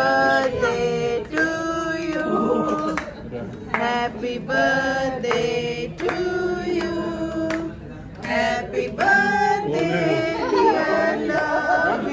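A group of mixed voices, adults and children, singing a birthday song together in held, sung notes.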